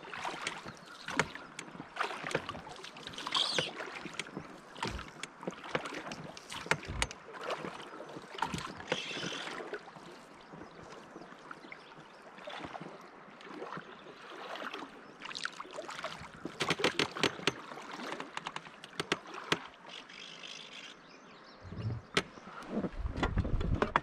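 Water lapping and slapping against the hull of a drift boat, with irregular small clicks and knocks of gear in the boat and a couple of heavier low rumbles near the end.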